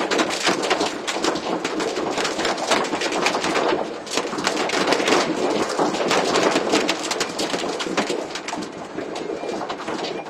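Torrential rain and hail pelting down, a dense rattle of countless rapid impacts that eases briefly about four seconds in.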